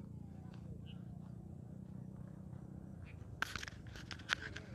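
Footsteps crunching on a dirt and gravel path, starting about three and a half seconds in, over a low steady rumble.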